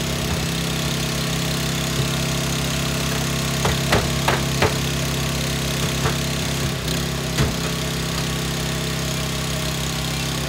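An engine running steadily at a constant speed, with a handful of short sharp knocks and clicks between about three and a half and seven and a half seconds in.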